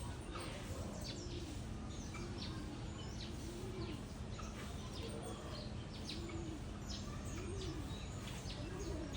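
Small birds chirping in short high calls, with a dove cooing about once a second, over a faint low steady hum.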